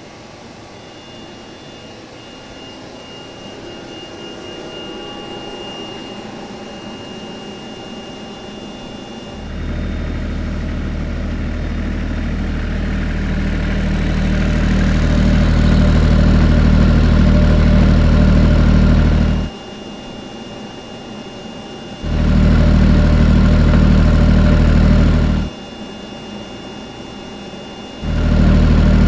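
A Bladon micro turbine generator running with a steady, fairly quiet hum and a thin high whine. It alternates with a soundproofed 16 kVA diesel generator running with a much louder, steady low engine rumble. The sound cuts from turbine to diesel about nine seconds in, back to the turbine for a few seconds twice, and to the diesel again near the end.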